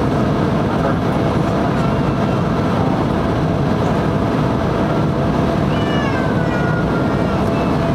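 Steady cabin noise of a jet airliner in flight, heard from a window seat over the wing, with a faint steady hum tone. About six seconds in, a faint high cry glides downward for a second or so.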